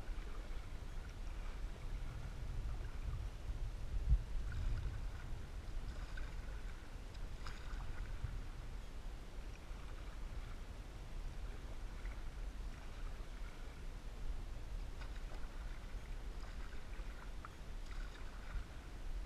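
Canoe being paddled, with faint paddle strokes and water swishing off the blade about every second and a half over a steady low rumble. There is a single soft bump about four seconds in.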